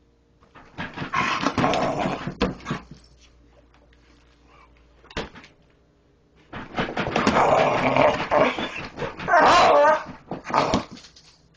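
A dog barking and growling in two loud bouts, the first starting about half a second in and the second from about six and a half seconds, with a single sharp knock around five seconds in.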